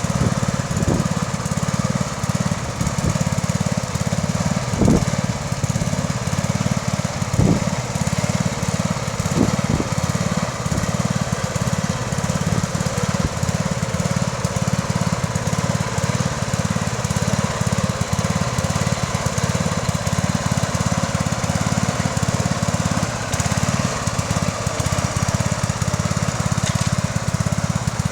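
Bolens 1050 garden tractor's single-cylinder engine running steadily under ploughing load, with a few short thumps in the first ten seconds.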